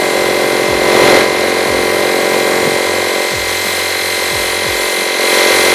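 Small air compressor running steadily for an airbrush, with the hiss of air and paint spraying from the airbrush.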